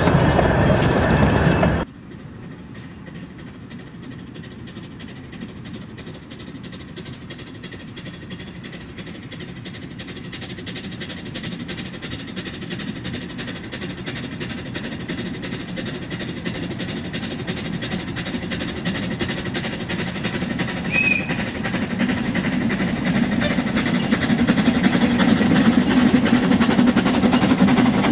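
Narrow-gauge train carriages rolling past on the rails, cut off suddenly about two seconds in; then a double-headed narrow-gauge steam train approaching, its exhaust and wheel noise growing steadily louder.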